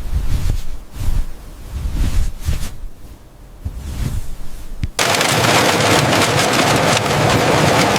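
Low, gusty wind buffeting the microphone with a few sharp clicks, then about five seconds in an abrupt cut to a loud, steady machinery din.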